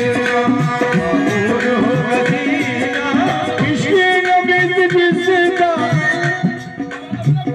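Qawwali music: harmonium melody over a steady hand-drum rhythm, with a singer's voice gliding through long ornamented notes in the first half before the harmonium holds steady chords.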